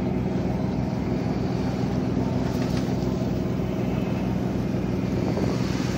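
Ferry's engine running steadily under way: a constant low drone with a steady hum that does not change.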